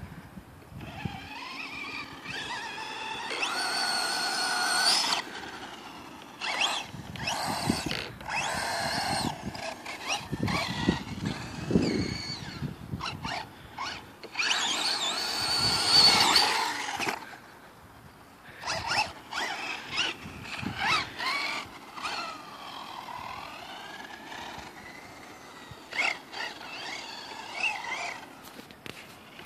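Axial EXO RC buggy's electric motor and drivetrain whining in repeated throttle bursts. The pitch rises and falls as it accelerates and slows, loudest a few seconds in and again about halfway through.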